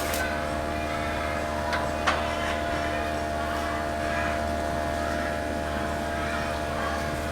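A steady machine hum at a constant pitch, with a deep low drone and several even overtones, and a couple of faint knocks about two seconds in.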